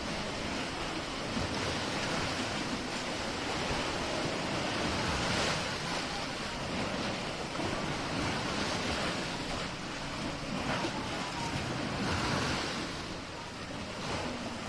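Sea waves washing in and breaking, a continuous surf noise that swells about five seconds in and again near twelve seconds, with wind buffeting the microphone.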